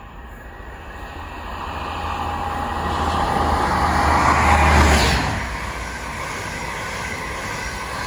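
Class 43 HST diesel power car approaching at speed, its engine hum and a high steady whine growing louder until it passes close by about five seconds in, then dropping away to the steady rush of the coaches running past.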